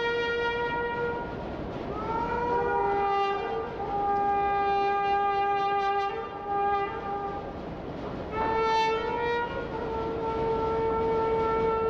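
Brass instrument playing long held notes: a slide about two seconds in onto a lower note held for several seconds, then a higher note held from about eight and a half seconds in.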